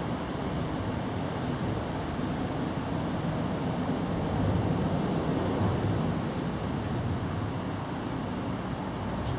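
Steady rain falling, an even noise without pauses that swells a little about halfway through.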